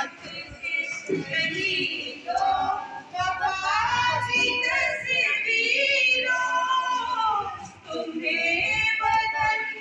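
A woman singing a song into a microphone, amplified through a loudspeaker, with wavering held notes and short breaks between phrases.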